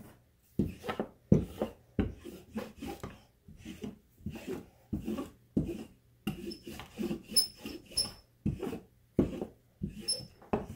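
Wooden rolling pin rolling roti dough thin on a floured countertop: repeated back-and-forth strokes, each a short rubbing rasp with a light knock of wood on the counter.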